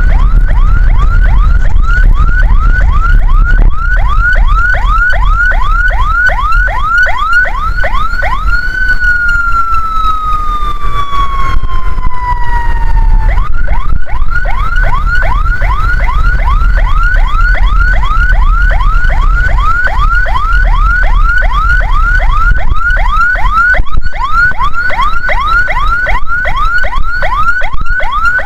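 Ambulance's electronic siren on a fast yelp, about four rising chirps a second. About eight seconds in it changes to one long tone falling slowly for some five seconds, then snaps back to the fast yelp. A steady low rumble runs underneath.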